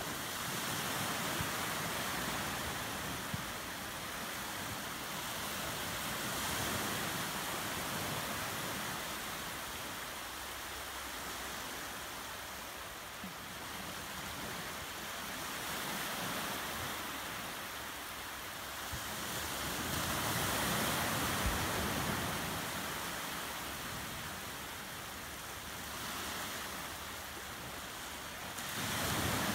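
Small waves washing in over a shallow sandy shoreline: a steady hiss of surf that swells and eases every few seconds, loudest about twenty seconds in.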